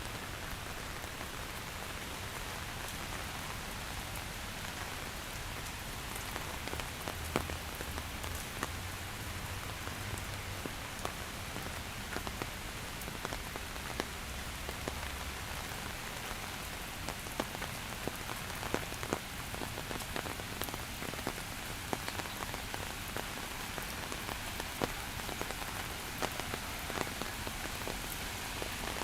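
Steady rain falling, with many separate drops ticking sharply on a nearby surface. A faint low hum sits under it for several seconds in the first half.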